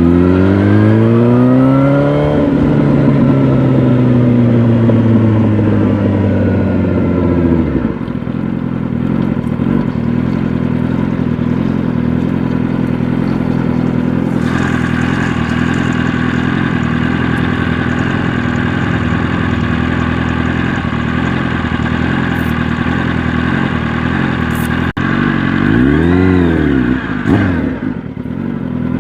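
Yamaha R1 inline-four engine heard from the rider's seat. It revs up hard at the start, then the revs fall away slowly over several seconds as the bike slows. It settles to a long steady low-rev run, and near the end there is one quick blip of the throttle up and back down.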